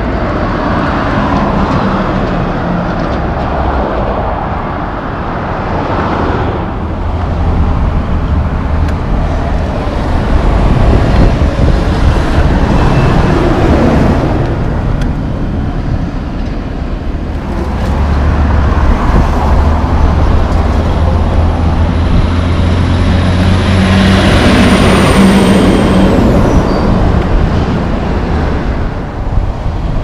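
Heavy trucks and cars passing on a road, their engines running and swelling and fading as they go by. Near the end comes a brief high squeal that falls in pitch.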